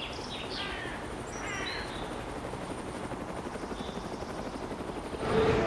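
Faint outdoor ambience: a steady fluttering noise, with a few short chirping calls in the first two seconds.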